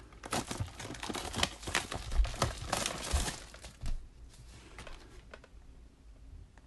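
Plastic packaging wrap being torn open and crinkled by hand: a dense run of sharp crackles for about four seconds, then a few lighter scattered rustles.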